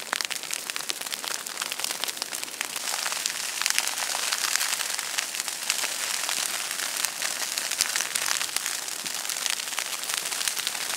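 Dry grass burning with dense, rapid crackling, set alight by a drip torch in a burnout. The crackling grows louder about three seconds in.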